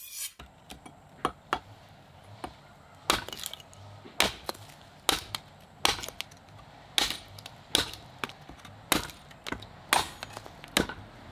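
Large knife forged from truck leaf-spring steel chopping through a thin wooden lath, a series of sharp chops roughly a second apart, each taking off a piece of wood. A few lighter knocks come in the first two seconds before the heavy chops begin.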